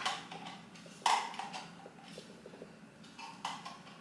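Plastic clicks from handling the Ultenic P30 grooming vacuum's brush attachment on the end of its hose: one sharp click about a second in, then a softer click and light handling noise a couple of seconds later. The machine itself is switched off.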